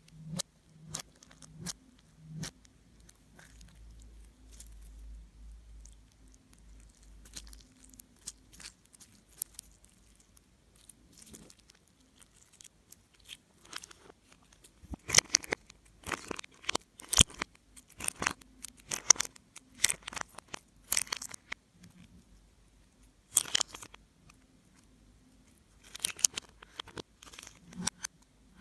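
Slime being worked by hand, giving off sharp crackling and popping clicks: scattered at first, then in dense clusters through the second half.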